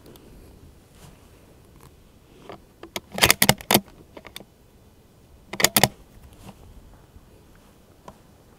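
Bolt of a bolt-action rifle being worked: a quick run of sharp metallic clicks about three seconds in, and a second short run of clicks near six seconds.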